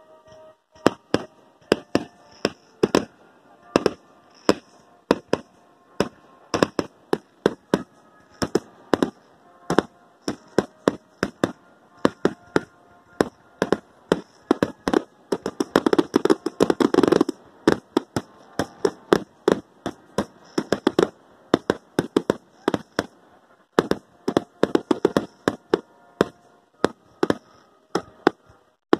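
Fireworks finale: a rapid barrage of aerial shell bursts, sharp bangs coming several a second, densest and loudest about sixteen seconds in.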